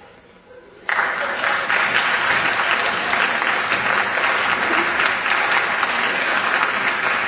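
Audience applause breaking out suddenly about a second in, then a dense, steady clapping from a full house.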